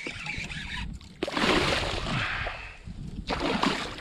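Water splashing and sloshing as a hooked redfish thrashes at the surface beside a kayak, in two louder stretches with a short lull between.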